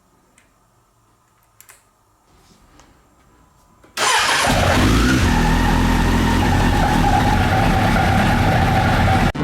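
Suzuki GSF1200's oil-cooled inline-four engine starting about four seconds in, after a few faint clicks, then running steadily with a steady whine; the generator noise being checked.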